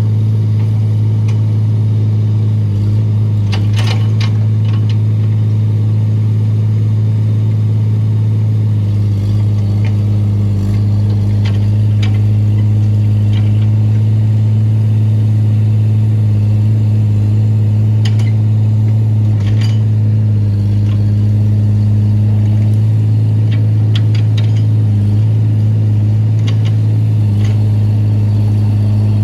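Excavator's diesel engine running at a steady pitch, with a few scattered clanks and knocks.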